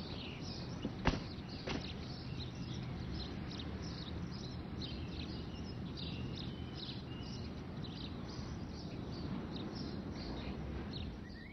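Outdoor ambience of small birds chirping repeatedly over a steady low rumble, with a couple of sharp clicks about a second in.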